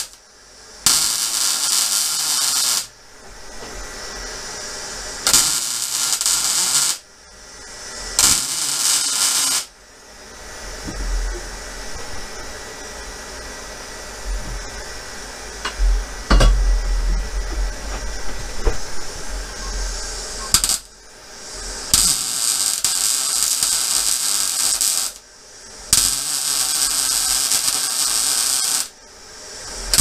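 Electric arc welder welding a steel exhaust pipe: five bursts of crackling hiss, each one and a half to three seconds long. A long break in the middle holds quieter handling noise and a single knock.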